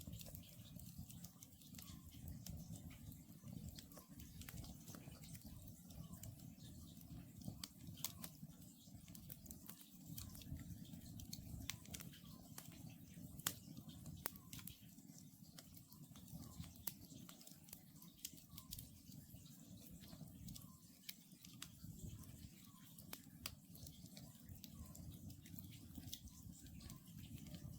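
Wood campfire crackling, with frequent sharp pops over a low steady rumble of the flames. Faint, evenly repeated calls of an Oriental scops owl sound under the fire.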